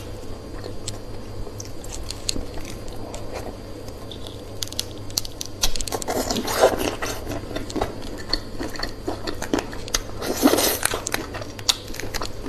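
Close-miked chewing and biting, with crisp crunches and wet mouth sounds. The eating gets busier about six seconds in and again about ten seconds in.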